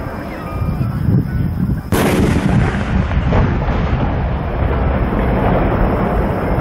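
A large No. 10 aerial firework shell bursts overhead with one sharp, loud bang about two seconds in, followed by a long rumbling echo that rolls on.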